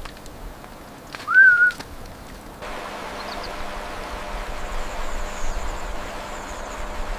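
A single short whistled bird call about a second in, rising and then dipping slightly, over a quiet outdoor background with scattered faint clicks. Partway through, the background cuts abruptly to a louder, steady rushing noise of mountain wind and flowing water.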